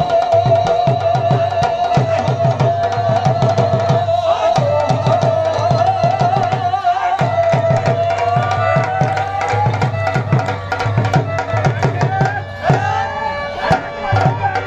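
Bhangra music: a dhol drum beating a steady rhythm under a sustained, wavering melody line that breaks into shorter gliding phrases about halfway through.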